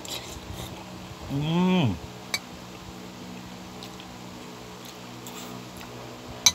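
Eating with a metal spoon from a plate: a short hummed "mmm" that rises and falls in pitch about a second and a half in, and a few light clicks of the spoon against the plate, the sharpest near the end, over a steady low hum.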